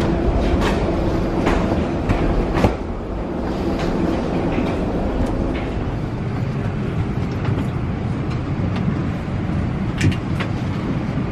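Footsteps and a wheeled suitcase clattering along an airport jet bridge into an aircraft cabin over a steady low rumble. A few sharp clacks come in the first three seconds, and one more comes about ten seconds in.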